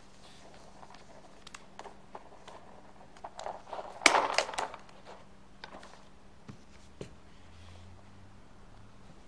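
Handheld stapler stapling the rims of two paper plates together, with light paper handling and clicks around it and the loudest, sharpest snaps about four seconds in.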